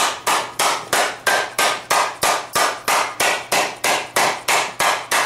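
Hand hammer striking a hot steel pan blank on a wooden stump, a steady run of evenly spaced blows about three a second, each with a short metallic ring. It is the dishing of a forged frying pan: the hot blank is hammered over the wooden block to shape it.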